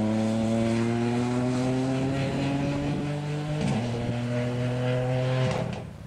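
Ford Fiesta rally car's engine pulling hard, its pitch climbing slowly, with one gear change about two-thirds of the way through, then climbing again before the sound cuts off near the end.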